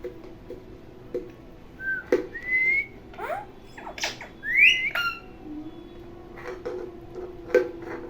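Pet green parrot giving short rising whistles, about two seconds in and again a little past four seconds, between sharp clicks and brief squeaky calls.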